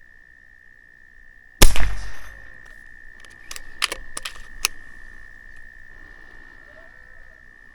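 A single air rifle shot about one and a half seconds in, a sharp crack with a quick second spike right behind it, followed a couple of seconds later by a few short sharp clicks. A steady high whine sits under it all.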